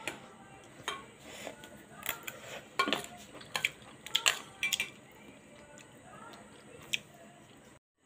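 Metal spoon clinking and scraping against a steel bowl while stirring boiled corn kernels in chutney: irregular sharp clicks, busiest in the middle.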